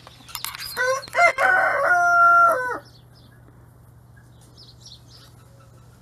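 Rooster crowing once, about a second in: a few short notes and then one long held note lasting about two seconds. Faint small-bird chirps follow near the end.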